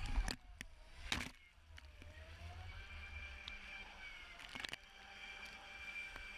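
Onean Carver electric jetboard's jet drive whining with a steady high tone, over water rushing and splashing against the microphone at water level, with a few sharp splashes about a second in and near four and a half seconds.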